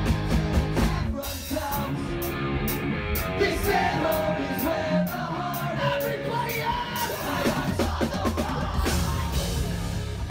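Live rock band playing loud: pounding drums and electric guitar under a singer who yells and sings into the microphone.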